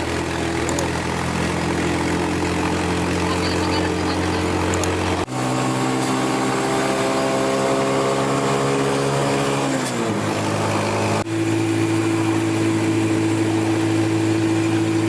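A motor vehicle's engine running steadily, heard across a few spliced clips; about ten seconds in its pitch drops as it slows down.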